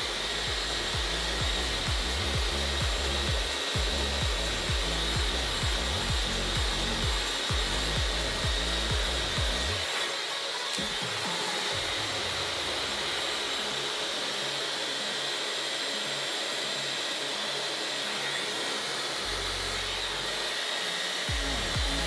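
Dyson Supersonic hair dryer running steadily on a high setting, blowing air through hair over a round brush: a continuous airy hiss. A low fluttering rumble comes through for about the first ten seconds, drops away, and returns near the end.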